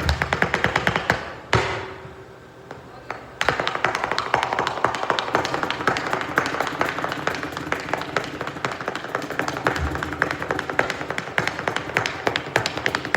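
Flamenco footwork (zapateado): rapid heel and toe strikes of flamenco shoes on a miked stage, more stomp than tap. A single hard stamp about a second and a half in is followed by a short lull, then the fast strikes resume and keep going.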